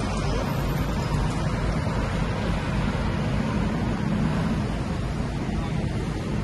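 Steady road traffic noise, with a city bus's engine running close by.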